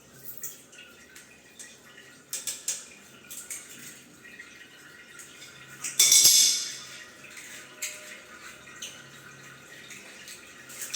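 Plumbing fittings and tools being handled: scattered metallic clinks and knocks, with a short loud rushing noise about six seconds in.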